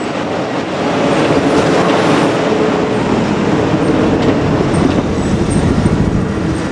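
JR Kyushu KiHa 200 diesel railcar running past, with a steady loud rumble and scattered clacks from its wheels on the rails.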